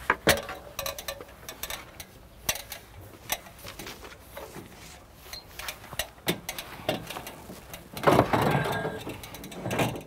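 Aluminium ladder clanking and rattling as it is handled and pushed up onto a corrugated fibre cement roof, with many sharp knocks and a louder, longer scrape about eight seconds in.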